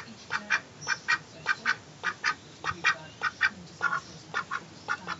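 Mallard duck quacking over and over, short calls coming mostly in quick pairs, a pair roughly every half second.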